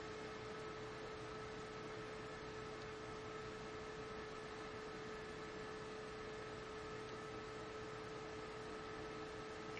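Low, steady background hiss with a faint constant electrical hum: room tone, with no other sound.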